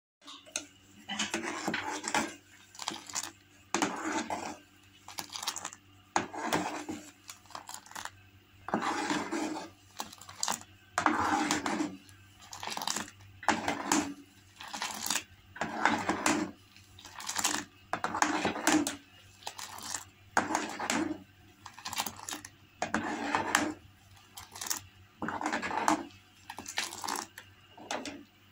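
Steel ladle stirring and scooping milk tea in a metal pot in repeated strokes, about one a second: metal scraping on the pot and tea splashing back off the ladle as the tea comes to the boil.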